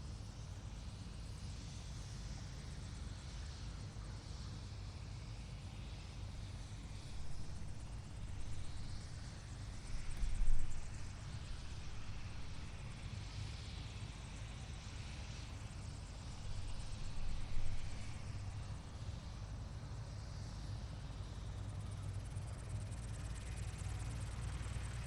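Helicopter running with its rotor turning, a steady low drone with a few brief louder surges, the strongest about ten seconds in. The low drone builds slightly near the end.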